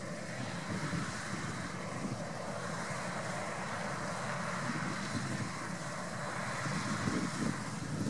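CLAAS Lexion 570+ combine harvester running steadily while cutting wheat, its engine and threshing machinery giving an even mechanical noise.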